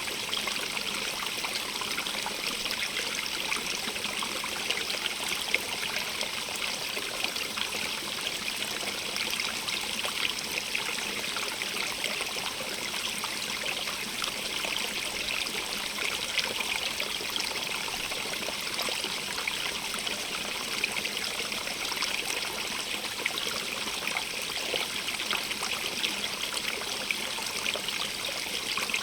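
Stream running over stones, a steady rush of water with small splashes and trickles.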